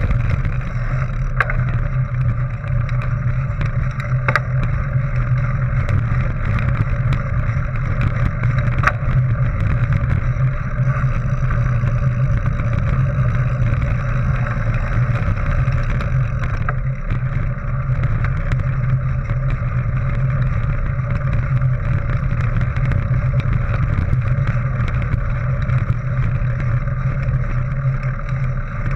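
Mountain bike rolling along a gravel dirt track: a steady low rumble of tyres and wind buffeting the microphone, with a few sharp ticks along the way.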